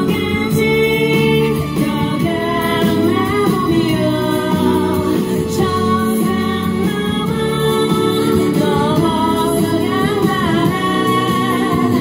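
A woman singing into a handheld microphone over instrumental accompaniment, amplified through PA speakers.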